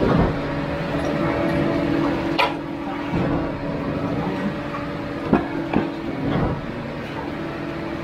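A steady engine hum runs throughout, under the scraping and knocking of concrete finishing tools: a sharp clink about two and a half seconds in and a few more knocks past the middle.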